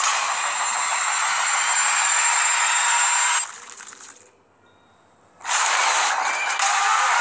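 Film sound design: a lethal-injection machine hissing steadily with a thin high whine, fading out about three and a half seconds in. After about a second of near silence, a loud rushing, rattling noise cuts in suddenly.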